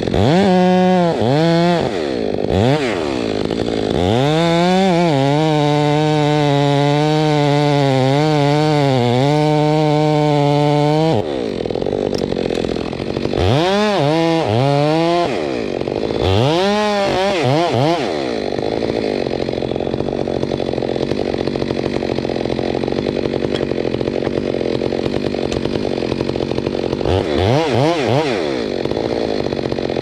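Two-stroke chainsaw cutting into the base of a standing tree trunk. The engine revs up and down in quick blips, holds a steady pitch in the cut, revs again in bursts, then runs long under load.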